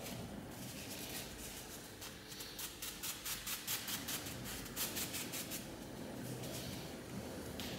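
Paper towel rubbed back and forth over an oiled Norton Crystolon sharpening stone, wiping it clean: a run of quick, light rubbing strokes, about four a second, for a few seconds in the middle.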